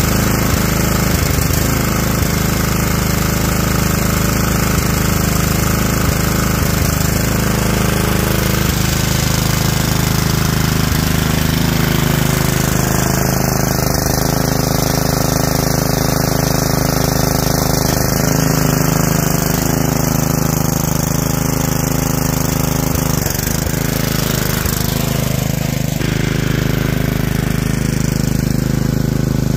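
Bolens ST110 garden tractor's engine running loud and steady during a test drive, its pitch shifting slightly now and then.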